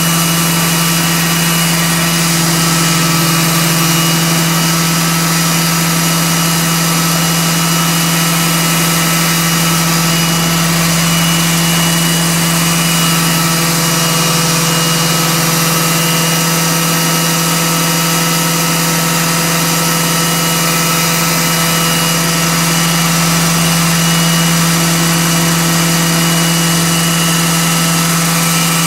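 Roban EC-135 scale RC helicopter's rotors and motor spinning steadily at half throttle with the pitch at −3%, a ground spool-up: an even, unchanging hum with a steady whine over it.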